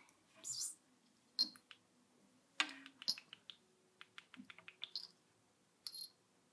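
Scattered light clicks, taps and short scuffs of a kitten's claws and paws on a wooden parquet floor, with one louder tap about two and a half seconds in and a quick run of clicks a little later.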